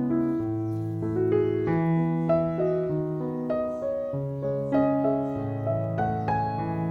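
Background piano music: a gentle melody of single notes over a steady bass line.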